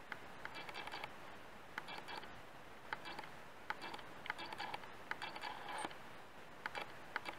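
Faint handling noise: small sharp clicks and ticks with light scrapes, coming in loose clusters about once a second.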